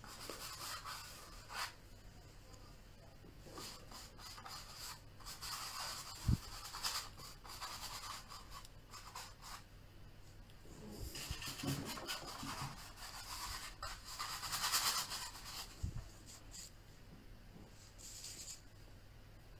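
Paintbrush strokes of oil paint rubbing and scratching across canvas in short, intermittent bursts, with a single light knock about six seconds in.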